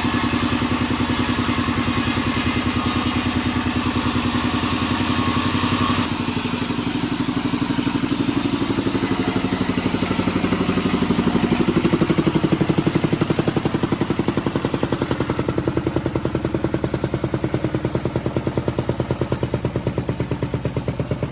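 Sawmill band saw machinery running with an even pulsing drive sound; a harsher cutting noise stops abruptly about six seconds in, leaving the machine running on.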